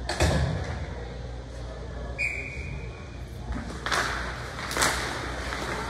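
A referee's whistle gives one short blast about two seconds in, over the murmur of spectators' voices and a few sharp thumps.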